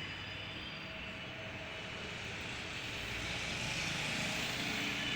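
Steady engine-like background noise without words, growing slightly louder over the last two seconds.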